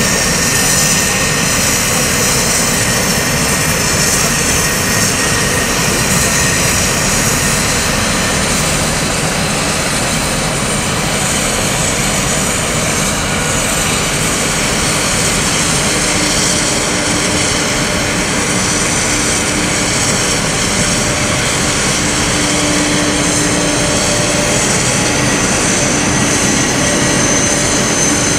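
Jet aircraft turbine running steadily on the apron: a loud, even rush with faint steady whine tones over it.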